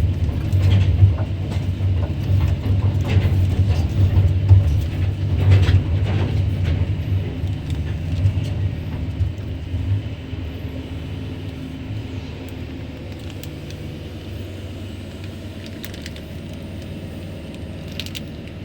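Kobelco SK200-10 excavator's diesel engine and hydraulics heard from inside the operator's cabin, with a deep steady drone and a few knocks. The engine is loud for about ten seconds, then drops to a quieter, steady hum.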